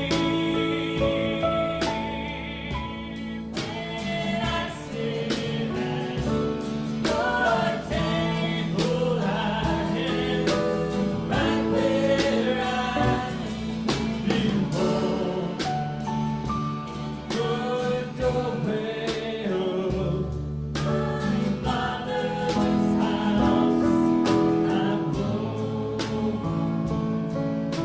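Live worship band playing a song, with several singers' voices over guitars, keyboard and drums.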